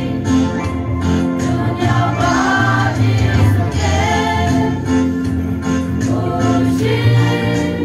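A women's choir singing a Christian hymn together, with continuous sung phrases.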